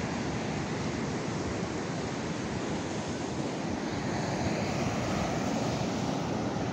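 Ocean surf washing steadily onto a sandy beach, mixed with wind rumbling and buffeting on the microphone.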